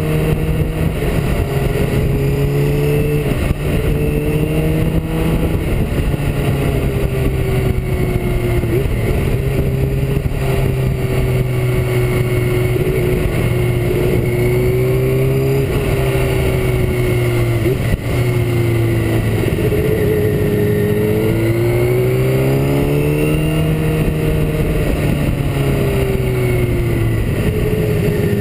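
Motorcycle engine running on the road, its pitch rising and falling with the throttle and gear changes through the bends, over steady wind rumble.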